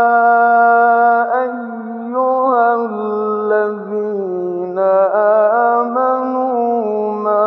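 A man's voice chanting Quranic recitation in ornamented tajweed style. A long held note breaks about a second in into slow melismatic turns, with the pitch sinking lower midway.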